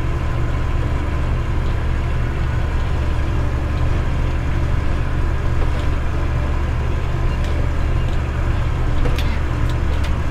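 Tractor engine running steadily, a constant low drone, with a few light clicks near the end.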